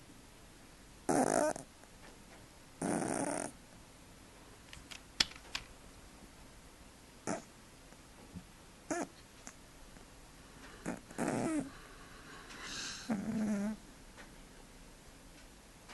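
A cat snoring loudly: two snores about two seconds apart near the start, a few seconds' pause, then a run of shorter, fainter snores at uneven intervals.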